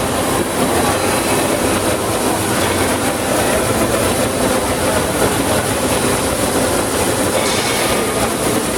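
Oxy-fuel cutting torch cutting thick steel plate: a steady, loud hiss of gas and burning metal, unbroken throughout.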